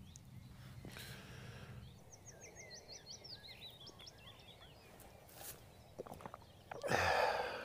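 Faint outdoor background with a small songbird singing a quick run of high, rapidly rising and falling notes, starting about two seconds in and lasting a couple of seconds. Near the end there is a short, louder breathy hiss.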